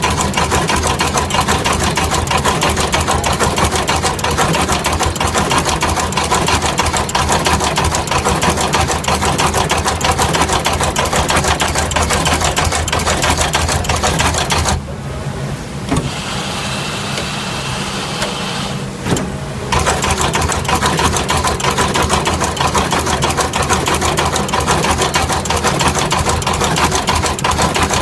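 Automatic radial component insertion machine running, a fast continuous clatter of its insertion head over a steady motor hum. About halfway through, the clatter stops for roughly five seconds and a quieter high whine is left, then the clatter starts again.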